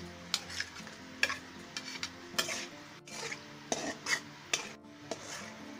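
Spatula stirring and scraping in a karai as stinging catfish pieces fry in oil and spice paste, sizzling, with a sharp scrape every half second to a second.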